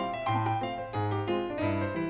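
Background piano music: a steady run of light notes over a repeating low bass note.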